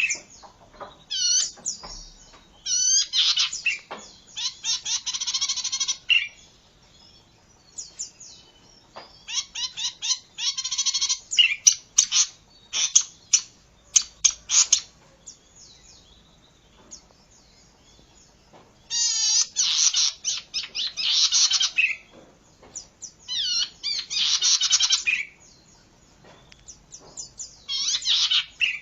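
Oriental magpie-robin (kacer) singing: loud phrases of rapid, varied whistles and warbling trills a few seconds long, broken by short quieter gaps.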